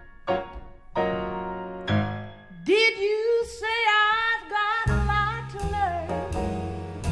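Jazz grand piano playing separate chords, then a female voice comes in about three seconds in with a long held note that wavers in pitch. Upright bass joins beneath it near the five-second mark.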